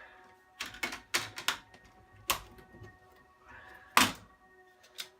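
Plastic laptop screen bezel being pried off its frame: a series of sharp irregular clicks and cracks as the snap clips let go, the loudest about four seconds in.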